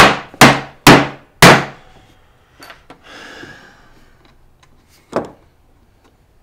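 Claw hammer driving a nail into a wooden board on a workbench: four quick blows about half a second apart, then a single lighter blow about five seconds in.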